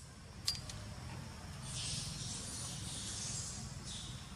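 A soft hiss that comes in about one and a half seconds in and lasts about two seconds, with a shorter hiss near the end and a single click near the start, over a steady low rumble.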